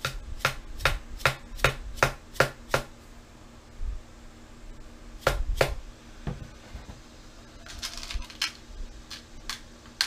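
A small hammer tapping tacks into a wooden hiking stick: a run of seven sharp taps at about two and a half a second, two more taps a couple of seconds later, then a few lighter taps near the end.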